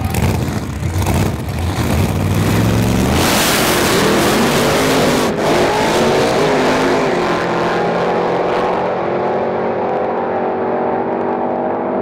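Two drag cars, one with a supercharger through its bonnet, idling on the start line, then launching about three seconds in at full throttle. The engine note climbs through the run and grows duller and fainter as the cars pull away down the strip.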